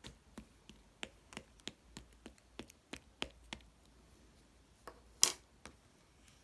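Slime being squished and pressed by hand, giving a run of sharp little clicks and pops, about three a second, then one much louder pop about five seconds in.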